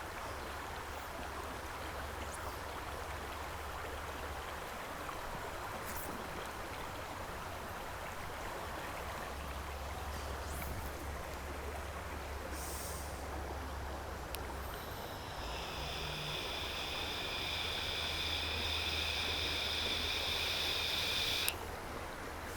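Shallow river water running steadily over a low, riffly stream. About two-thirds of the way through, a steady high buzz joins it for several seconds, then cuts off suddenly shortly before the end.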